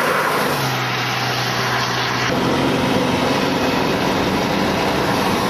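Car engine and road noise heard from inside a car, steady throughout, with the engine note shifting about two seconds in.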